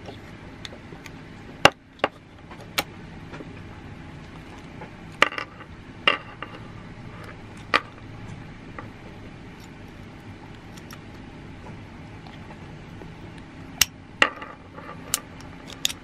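Banshee alarm padlock being handled: its chrome metal body and plastic battery module clicking and knocking as they are fitted together, about nine sharp separate clicks spread through, with a quiet steady hum underneath.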